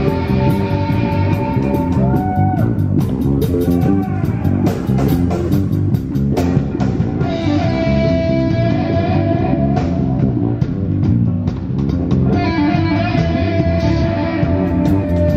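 Heavy rock band playing live: electric guitars over bass and drums. The guitar holds long notes, with a few bent notes early on and sharp cymbal or drum hits in the middle.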